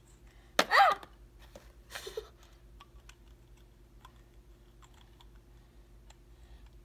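A child's short wordless cry, falling in pitch, about half a second in, then faint scattered clicks of a small plastic toy nail polish bottle and cap being handled and fitted together.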